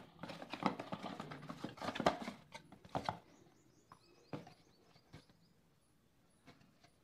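Handling of an unboxed TV box's packaging and accessories: busy rustling, clicking and tapping for about three seconds, then a few single light knocks as things are set down.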